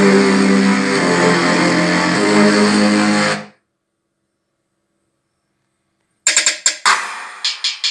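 Music played back through a Taramps Home 80W amplifier and Sony speakers. A guitar-led track fades out about three and a half seconds in. After a few seconds of silence, a new track begins with sharp, punchy beat hits.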